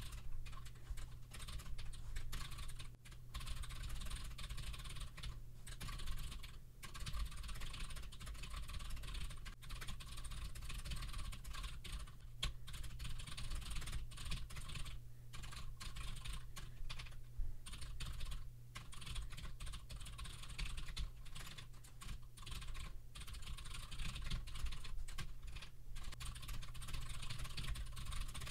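Fast typing on a computer keyboard: keystroke clicks in rapid runs, broken every few seconds by short pauses, over a low steady hum.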